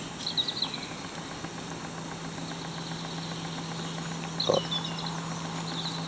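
A steady low hum with a few short, high chirps, and a brief louder sound about four and a half seconds in.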